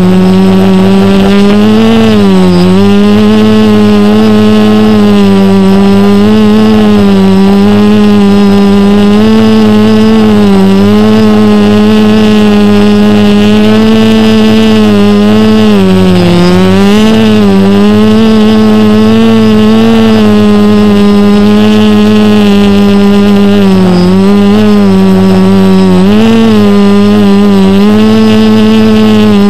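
Multirotor drone's electric motors and propellers running, heard loud through the drone's own camera, a steady buzz whose pitch dips and recovers several times as the throttle changes.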